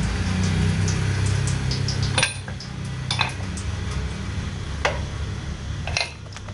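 Sharp metal clinks and knocks as the right-side crankcase (clutch) cover of a Yamaha Jupiter Z1 engine is worked loose and pulled off, about four clinks spread over the seconds. Under them runs a low steady hum that dies away near the end.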